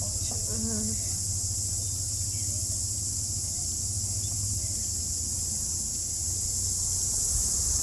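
Car cabin on the move: a steady low engine and road rumble under a steady high hiss.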